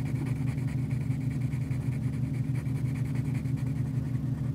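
Coloured pencil scratching softly on drawing paper as it shades in, over a steady low background hum.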